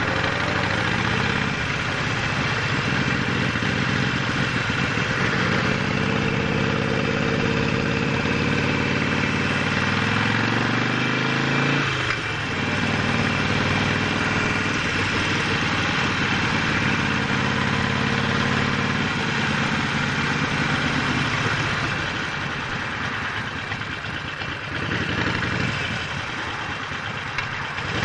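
Harley-Davidson Sportster 48's air-cooled 1200 cc V-twin running under way, its pitch climbing as the bike accelerates, with a short break and drop about twelve seconds in as it shifts gear, then pulling again. A steady rushing noise runs under the engine.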